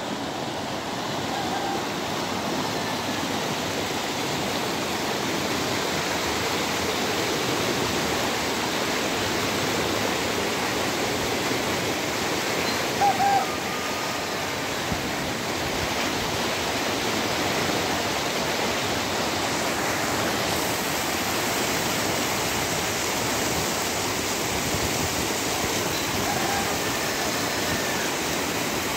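Muddy floodwater rushing down a flooded street, a steady wash of churning water, with a brief louder sound about halfway through.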